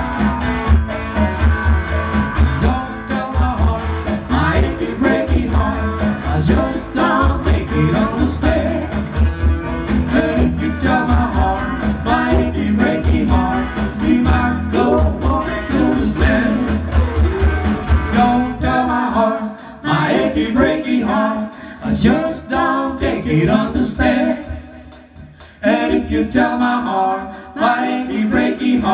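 Live pop band: a woman singing into a handheld microphone over electric guitar and keyboard backing. The bass drops out about two-thirds of the way through, leaving the voice over a thinner accompaniment.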